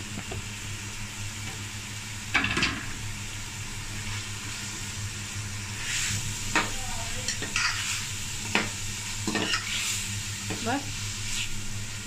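Shredded cabbage and capsicum sizzling in a hot aluminium pot of masala while a spoon stirs them, over a steady low hum. Short sharp scrapes of the spoon against the pot come about two seconds in and then repeatedly through the second half.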